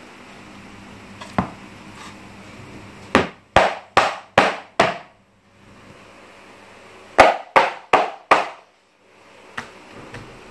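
Hard knocks on a 30 mm honeycomb paper pallet board, struck to show how stiff it is: a quick run of five strikes, then after a pause four more, each with a short hollow ring-out.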